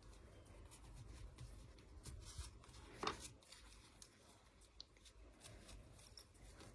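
Faint handling sounds as a small doll sock is worked onto a ball-jointed doll's foot: soft rubbing of fabric and light clicks of plastic parts, with one slightly louder tick about three seconds in.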